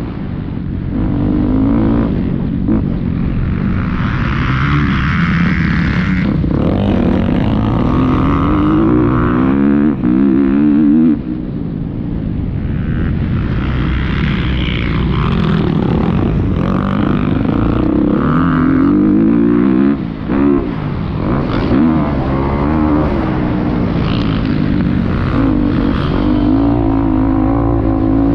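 Motocross bike engine at racing speed, revving up and down as the rider works through the gears, with the throttle shut off briefly a few times.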